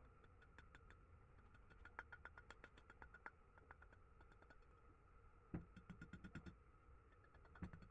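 Mallet tapping a gold bracelet on a steel mandrel to true its shape during repair: quick light taps, several a second, in short runs, with a heavier knock about five and a half seconds in and another near the end.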